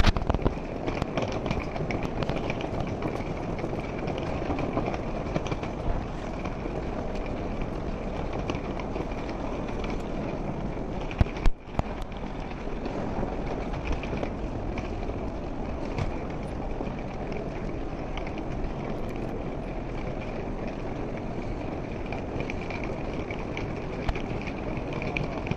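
Steady background noise of an airport terminal concourse with scattered footsteps on the stone-tiled floor, and one loud knock about eleven and a half seconds in.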